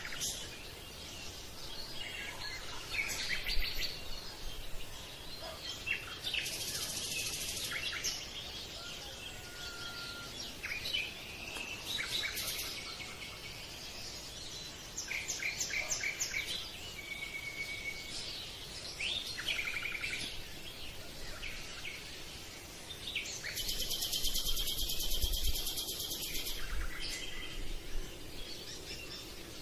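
Several songbirds singing and chirping, with short calls and rapid trills overlapping throughout, and a longer dense trill near the end.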